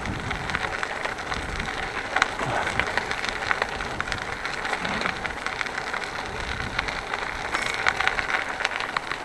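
Bicycle tyres rolling over a rough, unpaved path, a steady crackly noise with many small ticks and clicks.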